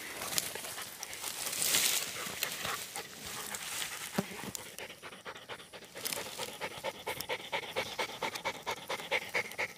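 Hunting dog panting hard close by, quick rhythmic breaths about three a second, clearest in the second half.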